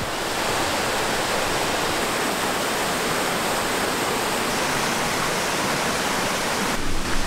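Small waterfall's water rushing in a steady, even roar of noise.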